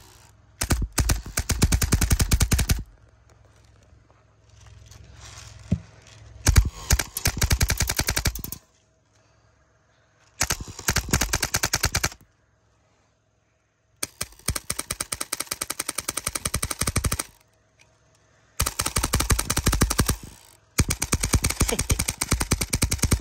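Homemade air-powered airsoft replica of a paintball marker, with a Polar Star engine, firing BBs in rapid strings of shots. It fires about six bursts of one to three seconds each, with short pauses between them.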